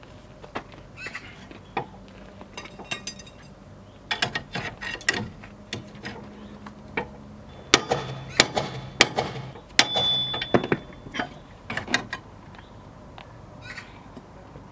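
Metal hand tools working on a car's front suspension: irregular sharp clicks and metallic knocks, with a few quick runs of clicking and the busiest, loudest stretch past the middle.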